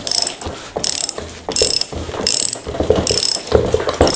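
Ratchet wrench tightening a nut, its pawl clicking in a short burst on each back-swing, about five strokes, roughly one every three-quarters of a second.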